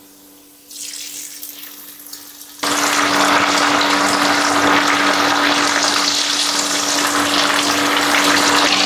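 Anchovies (netholi) coated in a chilli and cornflour marinade being deep-fried in hot coconut oil. The oil sizzles faintly at first, then about two and a half seconds in breaks into a loud, steady frying sizzle as the fish go in. A steady low hum runs underneath.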